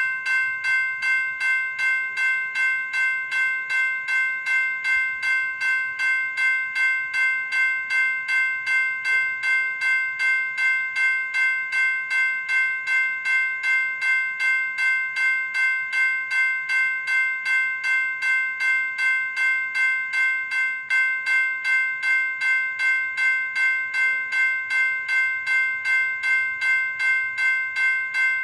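General Signals Type 2 electronic railroad crossing bell (E-Bell) ringing steadily, an even run of metallic dings at about two strikes a second.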